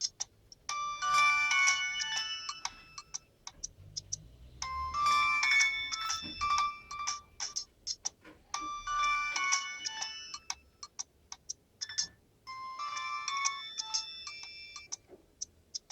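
Nokia 6230b mobile phone playing a ringtone through its speaker: a short melody of several notes at once, the phrase repeating about every four seconds with short separate notes between the phrases.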